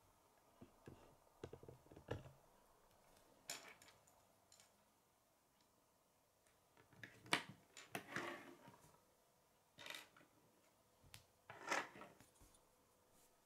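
Faint, scattered clicks and taps of plastic K'nex rods and connectors as a scissor linkage is worked and laid on a wooden tabletop. The sharpest clicks come about halfway through and near the end.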